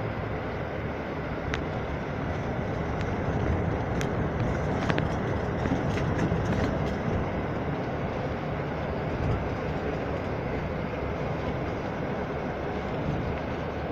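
Steady rumble and travel noise of a moving vehicle heard from inside it, with a few light clicks around the middle.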